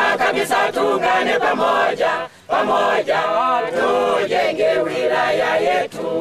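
A mixed group of men and women singing together unaccompanied, with hand claps, breaking off briefly about two seconds in.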